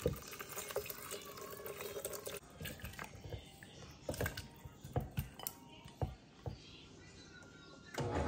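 Broth poured from a glass bowl into a plastic blender jar for about two seconds, then scattered knocks and clinks as softened vegetables are tipped and scraped out of the bowl with chopsticks.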